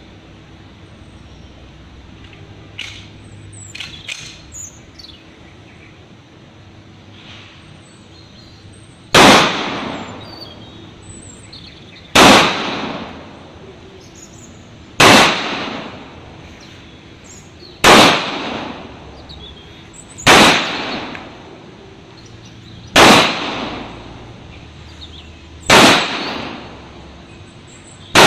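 Pistol fired in slow single shots: eight sharp cracks about three seconds apart, each followed by a short echoing tail, starting about nine seconds in, the last at the very end.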